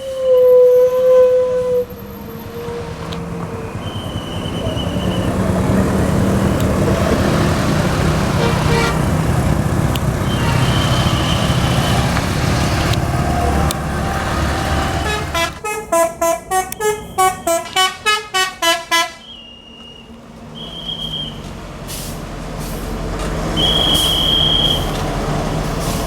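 A passing bus: a steady horn note cuts off about two seconds in, then the diesel engine rumbles louder as the bus climbs past. About fifteen seconds in, a telolet multi-tone musical horn plays a rapid run of about a dozen stepping notes for some three seconds. Another bus engine follows.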